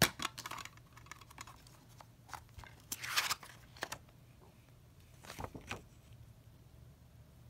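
Plastic DVD keep case snapping open with a few sharp clicks, then its paper chapter insert sliding out with a short rustle about three seconds in, and more clicks of the case and paper being handled near the end.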